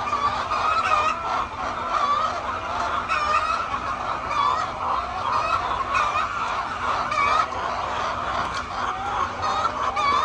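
A flock of hens clucking and calling, many birds overlapping in a steady, continuous chorus.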